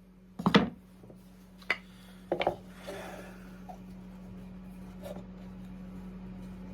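Wooden birdhouse pieces being handled and set down on a workbench: a few separate knocks, the loudest about half a second in, then a sharp click and a double knock, over a steady low hum.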